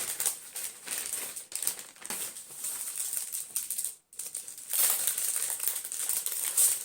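Packaging rustling and crinkling as a gift is unwrapped and handled, a dense run of irregular crackles. It breaks off for a moment about four seconds in.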